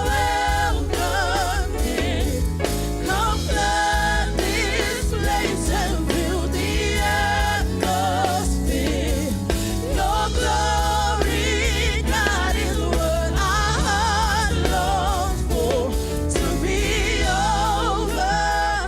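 Gospel worship music: a choir and lead singer with vibrato over a band with steady bass and drums.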